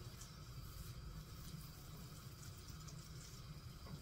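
Faint sizzling of butter and minced garlic melting in a frying pan on a low gas flame, over a steady low hum.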